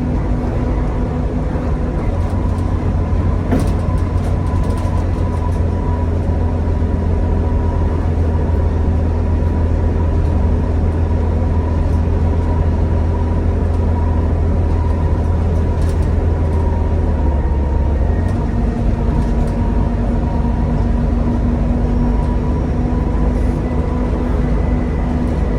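Volvo B7TL double-decker bus's six-cylinder diesel engine and ZF automatic gearbox pulling at a steady speed, a loud drone with a held whine over it. The engine note drops about two-thirds of the way through.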